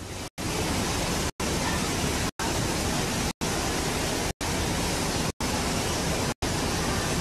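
Steady rushing of water pouring through a bowl water slide, cut off by a brief dropout about once a second.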